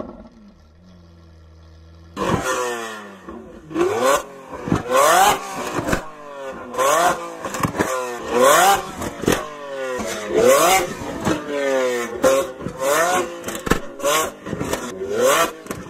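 Lamborghini Aventador LP700-4's V12 idling quietly, then blipped in a quick run of sharp revs from about two seconds in, roughly one a second. Each rev climbs fast and drops back, with short sharp cracks between revs.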